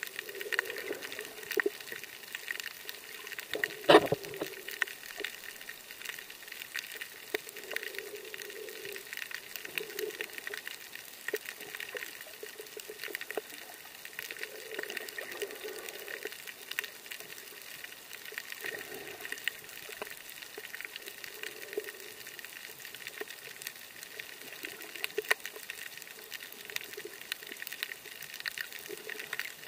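Underwater ambience picked up by a camera held below the surface over a coral reef: a steady crackle of small clicks and a haze of water noise, with soft muffled whooshes every second or two. One sharp knock about four seconds in is the loudest sound.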